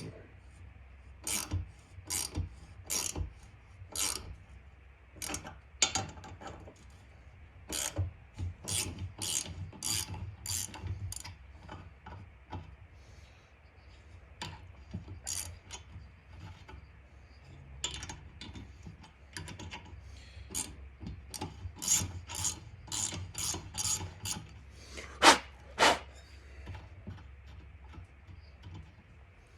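Ratchet handle clicking in irregular strokes as a thread-repair tap is worked into a chainsaw cylinder's spark plug hole, with some rubbing of the tap cutting. The clicks thin out for a few seconds near the middle.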